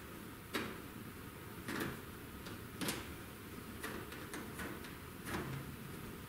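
Hands working rubber oil-cooler hoses and fitting a small clamp around them: several sharp clicks and rubbing sounds, spaced irregularly.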